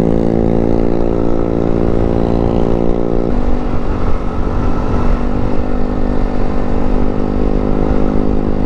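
Yamaha NMAX scooter's single-cylinder engine running steadily while riding, a steady drone over a low rumbling noise. The tone shifts a little about three seconds in.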